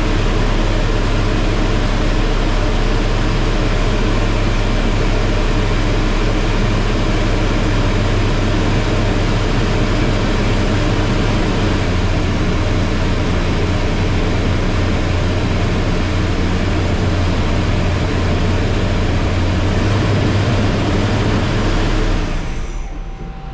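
A DN Solutions Puma TT2100 CNC lathe running a boring pass, its spindle turning the part while a 3/8-inch carbide boring bar cuts the inside diameter: a loud, steady wash of machine noise over a low hum, dying away near the end.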